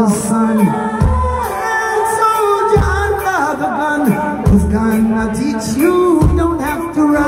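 Live band music with singing: a sung melody over deep bass notes that land about every two seconds, with drums.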